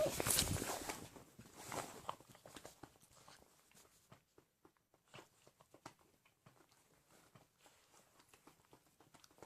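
A pet moving about, scuffling and rustling for about the first two seconds, then only scattered faint clicks and taps, like feet or claws on a hard floor.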